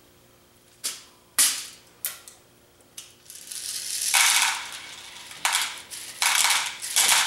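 BBs poured from their bottle into a plastic tub. A few separate clicks come first, then from about three seconds in a rattling rush in several surges as the BBs pour out.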